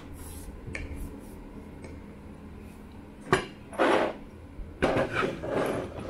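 Hard parts handled on a wooden tabletop: a sharp click about three seconds in, then a few short bursts of clatter and rubbing as the aluminium extrusion with its stepper motor and plastic mount is picked up.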